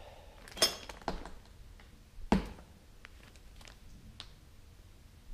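Several short, sharp metallic clinks and knocks from parts being handled, the loudest about two seconds in.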